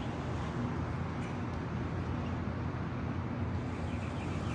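Steady low outdoor rumble with faint bird chirps now and then.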